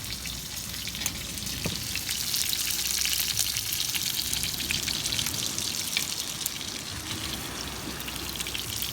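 Food sizzling and crackling as it fries, a steady hiss with many small pops.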